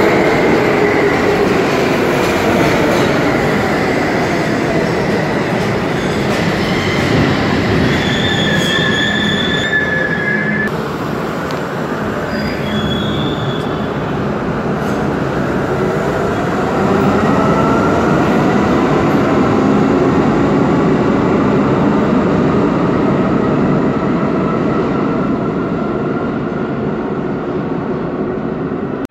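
R32 subway train running past at close range along the platform: a continuous rumble and motor whine whose pitch falls over the first few seconds and rises again after about fifteen seconds, with thin high wheel squeals around eight to ten seconds in.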